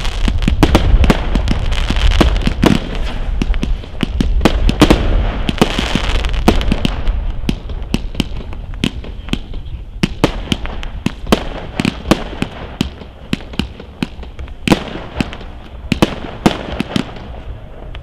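Aerial fireworks going off: a rapid, continuous string of bangs over crackling, dense and loud for the first seven seconds or so, then thinning to scattered sharp reports.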